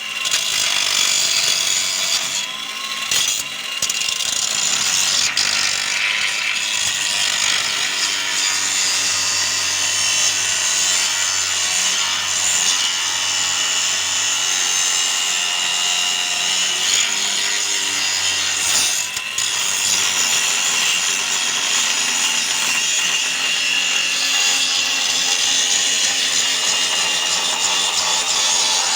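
Angle grinder grinding steel, running steadily under load and briefly easing off twice.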